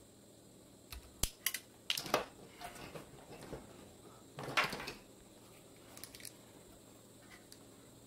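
Small workbench handling sounds from a wire and small hand tools: a few sharp clicks and taps about a second in, a short scrape around four and a half seconds, and a couple of faint clicks later.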